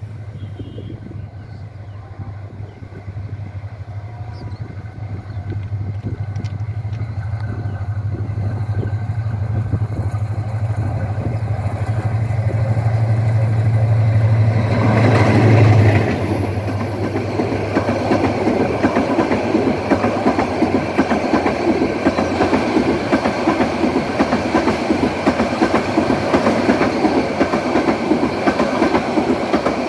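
A metre-gauge intercity train passing close by. The diesel-electric locomotive's low engine drone grows steadily louder as it approaches and cuts off as it passes about halfway through. Then the coaches rattle past with a steady clickety-clack of wheels over the rails.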